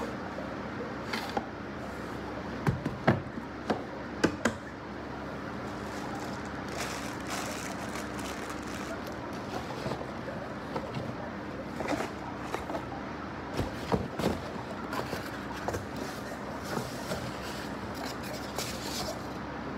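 Wooden folding chess and backgammon board handled: several sharp wooden knocks and clacks about three and four seconds in as it is closed and set down on a cardboard box, with more light knocks and rustling later, over a steady background hum.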